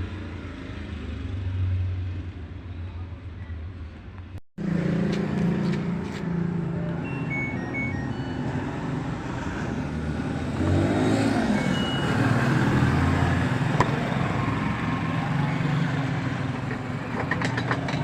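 LG top-load washing machine being started and filling: a few short electronic beeps come about a third of the way in and again later, over a steady hum and rush of running water.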